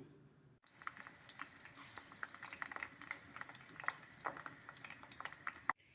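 Fat sizzling and crackling in a pan as it melts, with many small irregular pops over a steady hiss.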